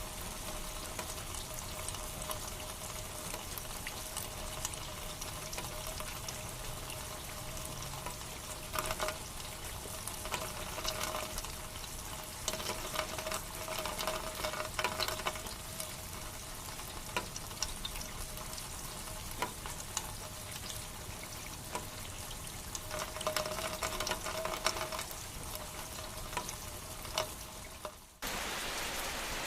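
Rain falling: a dense hiss full of sharp drop ticks, swelling louder a few times, with a faint steady tone running underneath. Near the end it dips and gives way to a smoother, more even rain hiss.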